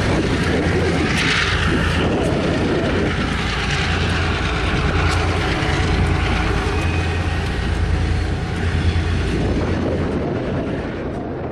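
EMD diesel switcher locomotives running with a steady low engine drone as they pull away, easing slightly near the end.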